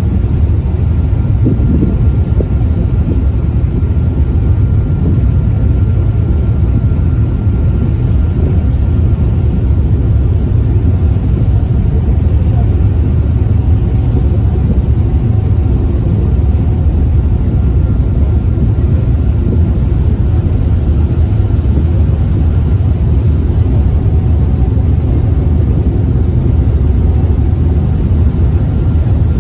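Steady low rumble of a passenger ferry under way, with a faint steady whine above it.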